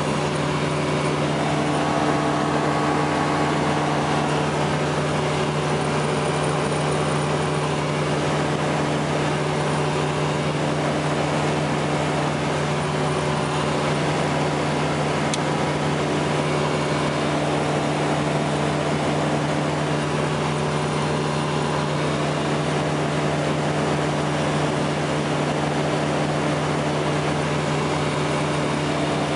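FlightStar ultralight's two-stroke engine and propeller droning steadily in level flight, its pitch unchanging, with air rushing past the open cockpit.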